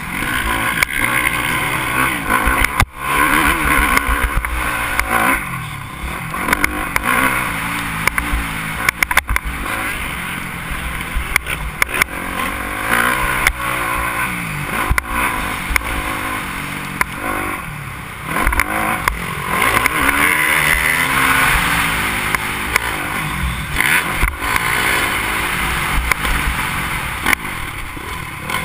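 Motocross dirt bike engine, heard from a helmet-mounted camera, revving up and dropping back again and again as the rider works the throttle around the track. Sharp knocks come through throughout.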